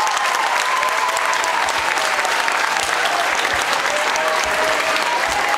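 Audience applauding steadily at a live concert.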